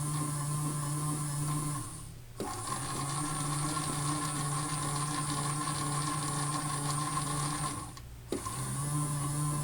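Toy washing machine's small electric motor turning the drum on a rinse cycle, a steady whirring hum. It stops briefly twice, about two seconds in and again about eight seconds in, and starts again each time with a click.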